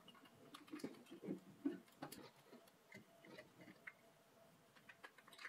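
Faint, irregular clicks and light knocks of metal camera-rig parts being handled and fitted together by hand.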